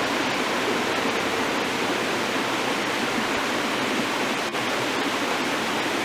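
Partly frozen waterfall: water falling and splashing down rock between icicles, a steady rushing.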